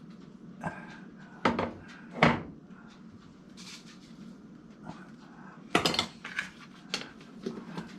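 Kitchen clatter while making coffee: a handful of sharp knocks and clinks of containers and cupboard handling. Two loud knocks come in the first couple of seconds and a quick cluster about six seconds in.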